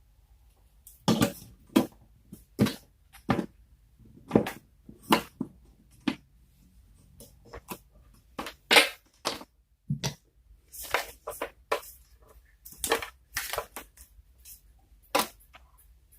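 Irregular clicks and knocks of hard parts being handled, roughly one to three a second with short pauses between them.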